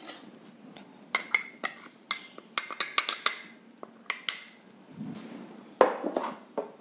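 Steel spoon tapping and scraping against a small glass bowl: a quick run of sharp ringing clinks as chilli powder is knocked out of it. About six seconds in, a louder knock as the glass bowl is set down on the table.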